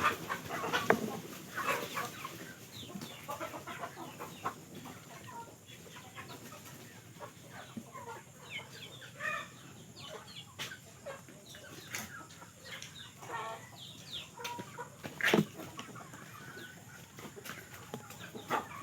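Chickens clucking, with many short calls overlapping throughout. Scattered clicks, and a louder sharp knock about fifteen seconds in.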